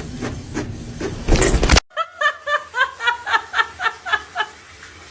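A person giggling in a quick run of short bursts, about four a second, that trails off. It follows a hard cut from a noisy clip that ends in a loud burst.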